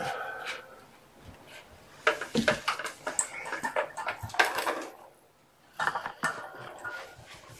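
Kittens moving about and playing: irregular bursts of rustling and clattering, busiest in the middle, with a short lull and then another burst about six seconds in.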